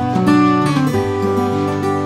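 Background music: acoustic guitar strumming and picking a melody.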